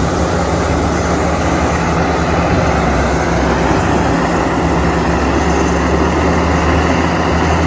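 A heavy machine's engine running steadily with a low hum, used as the engine sound of an excavator.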